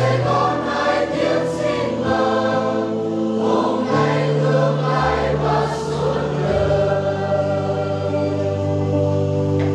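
Choir and congregation singing a hymn together on long held notes, with steady low notes sounding beneath the voices. The singing stops right at the end.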